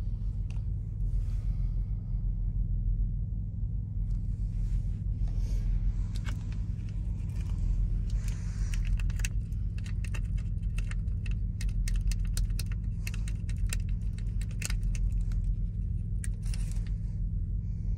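Steady low drone of an idling engine inside a truck cab, with light clicks and crinkles from about five seconds in as a cotton-bud wrapper is opened and handled.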